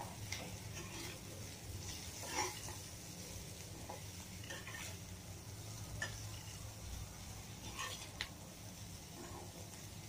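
Metal spatula stirring bitter gourd pieces in a steel kadhai, with irregular scrapes and clinks against the pan.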